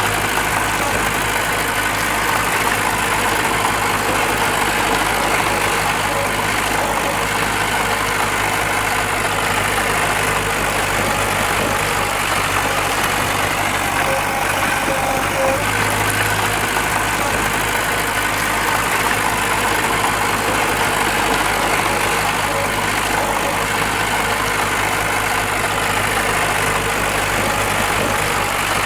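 Diesel engine of a bulldozer or dump truck running steadily, with a brief swell about halfway through.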